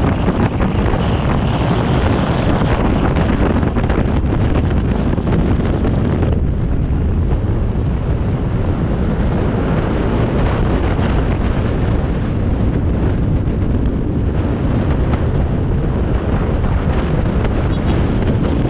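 Loud, steady wind buffeting the microphone, a continuous rush with a heavy low rumble, as a camera picks up while riding.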